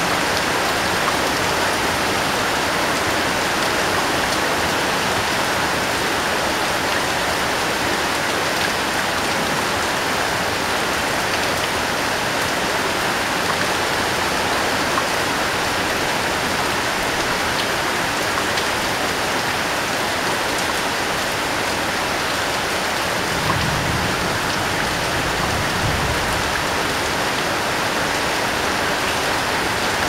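Heavy rain falling steadily on corrugated roof sheets, an even rushing patter. Near the end a brief low rumble swells twice under the rain.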